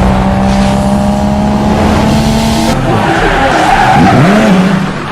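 Loud playback through a car's sound system of a track's intro of car sound effects: tire squeal and a racing engine. It changes abruptly a little over halfway through, with sliding tones near the end.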